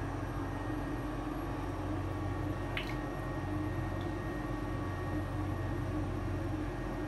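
Steady low mechanical hum and hiss, with one faint click a little under three seconds in.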